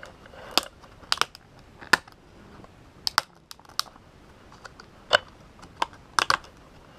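Fingers and nails handling a discbound paper planner and its packaging: about a dozen sharp clicks and light taps at irregular intervals.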